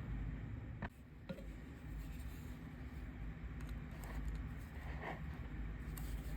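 A few faint clicks and light scrapes of hand plane parts being handled and tried apart, over a steady low room hum.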